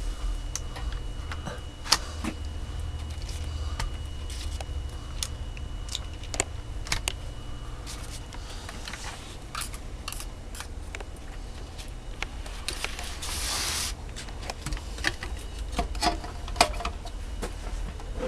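Control knobs being pried off a Galaxy DX-98VHP CB radio with a small screwdriver and handled: scattered light clicks and taps, with a brief scraping hiss about thirteen seconds in, over a low steady hum.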